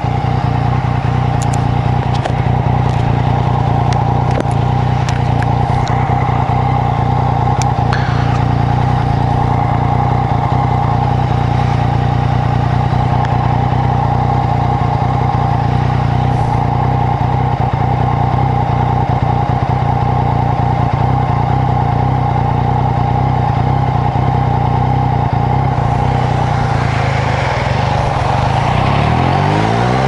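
Yamaha MT-09's three-cylinder engine idling steadily, then revving up as the bike pulls away near the end.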